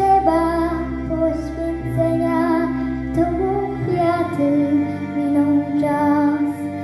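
A young girl singing a Polish song into a microphone over instrumental accompaniment, holding long notes.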